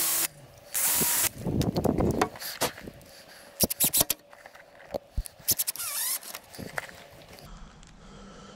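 Cordless drill piloting screw holes through a steel butt hinge into the door edge in two short bursts near the start, then a cordless impact driver driving the hinge screws in short bursts, with sharp clicks of tools and screws being handled and a rising motor whine about six seconds in.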